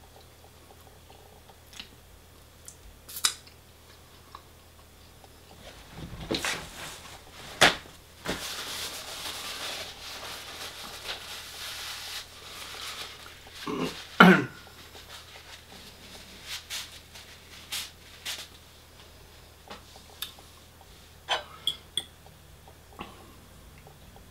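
Close-up eating sounds: chewing, with scattered clicks and taps of cutlery or food containers. Steady rustling runs for about four seconds in the middle.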